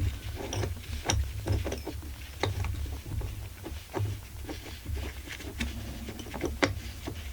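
Irregular light clicks and taps of small chainsaw parts being handled and fitted, over a low steady hum.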